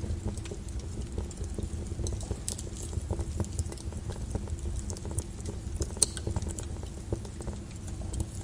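Wood fire burning in a fireplace: a steady low rumble of flames with irregular crackles and snaps, and one sharper pop about six seconds in.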